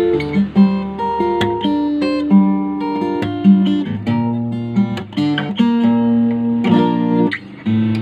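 Yamaha FG-251B steel-string acoustic guitar played fingerstyle: single plucked notes and chords ringing on, with a fuller strummed chord about seven seconds in and a short pause just after it.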